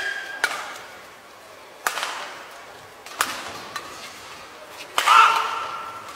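Badminton rackets striking a shuttlecock in a fast doubles rally: sharp cracks about every second or so, the loudest about five seconds in, followed by a brief squeal like shoes on the court.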